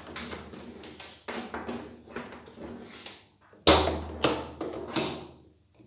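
Power cable being wound and handled on a pressure washer's cord holder: rustling and scraping with a run of knocks against the machine's body. The loudest is a sudden thump about two-thirds of the way in, followed by a few lighter knocks.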